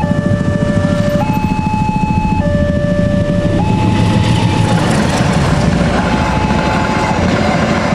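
Level-crossing warning alarm stepping between a low and a high electronic tone about every second and a quarter. About four seconds in, the loud, steady rumble of a passing train rises beneath it and partly drowns it.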